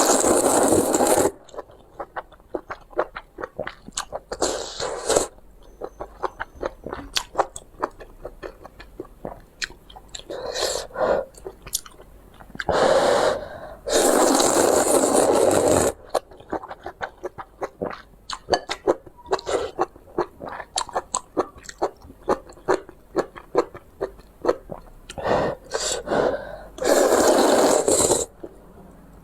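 Close-miked eating of spicy instant noodles: steady chewing with many small wet clicks. It is broken by several loud, noisy stretches of half a second to two seconds, the longest about halfway through.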